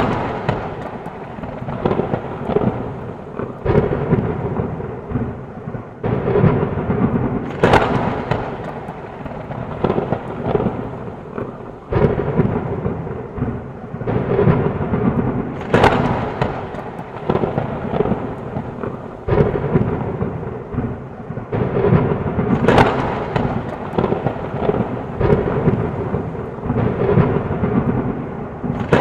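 Thunderstorm: heavy rain falling without a break, with repeated cracks and rolling rumbles of thunder every few seconds.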